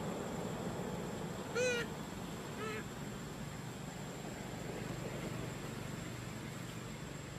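A macaque gives two short, high-pitched cries about a second apart, the first louder than the second, over steady forest background noise with a thin continuous high whine.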